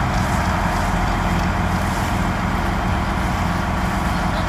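Boat engine running steadily under way, a constant low rumble mixed with wind and water rush.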